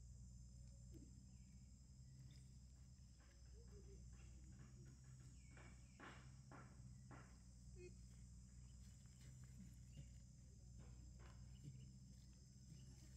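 Near silence: a faint steady drone of insects, with a few soft rustles in dry leaf litter about halfway through.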